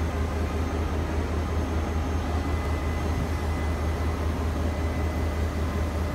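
A locomotive-hauled train pulling out of a station. The locomotives give a steady low rumble with a faint steady whine over it.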